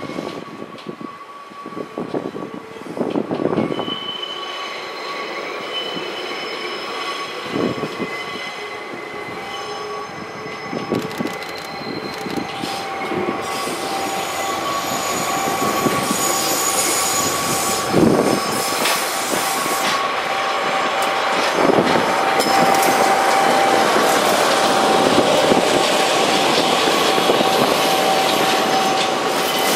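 Freight-style train movement: steel wheels of a DE10 diesel locomotive and new Keisei 3050-series electric cars squealing steadily on curved track at low speed, with a few clanks over rail joints and points. It grows louder as the cars pass close in the second half.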